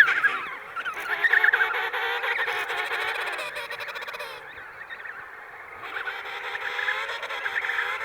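Emperor penguins calling, several warbling calls overlapping at once, a little quieter in the middle.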